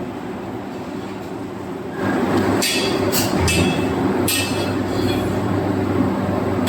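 Forging-shop machinery running with a steady low hum. About two seconds in it grows louder, and a handful of short sharp noises follow, with another near the end.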